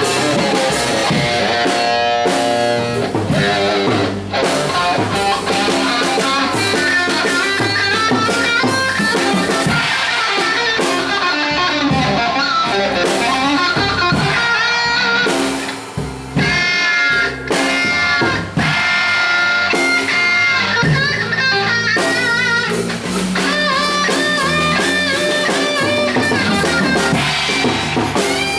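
Live band jamming: electric guitar playing bending lead lines over a drum kit and rhythm guitar, in a blues-rock groove.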